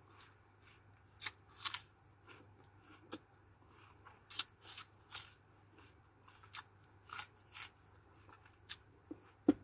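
Mouth chewing crisp wax apple (makopa) flesh: irregular, crisp crunches, one loud crunch near the end.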